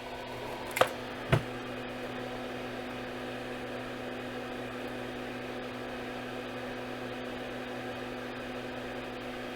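Steady electrical hum from workbench equipment, with a few fixed low tones, while UV-curing resin sets on a circuit board. Two sharp clicks come close together about a second in.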